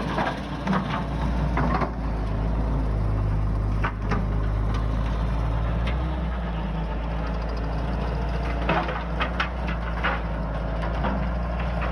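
Skid steer engine running steadily, with scattered sharp cracks at several points, heaviest near the start and again about two-thirds of the way through.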